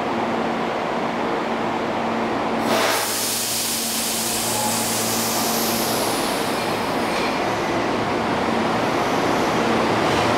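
Tobu 8000 series electric train humming steadily at the platform, with a short hiss about three seconds in. It then pulls away, its running noise growing louder as it picks up speed near the end.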